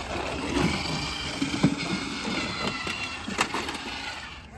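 Remote-control toy bulldozer running, its electric motor and gears whining steadily, with a couple of sharp plastic knocks as it pushes a toy truck along.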